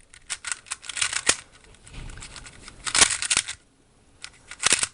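GAN 356 Advanced 3x3 speedcube being turned by hand, its plastic layers clicking in quick runs with short pauses between. The turning is very smooth.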